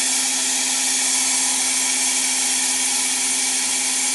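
Cold gas-dynamic spray gun running, its jet of compressed air and metal powder making a steady hiss over a steady hum while it builds up metal on a worn steering rack.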